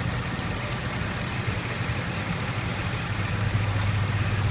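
A large truck engine running steadily, a low hum over outdoor road noise. The hum drops slightly in pitch and grows louder about three seconds in.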